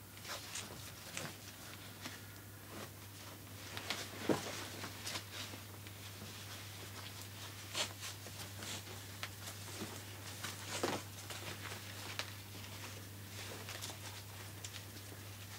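Nylon webbing strap rustling and sliding as it is threaded through a plastic backpack buckle, with scattered small plastic clicks and scrapes, over a low steady hum.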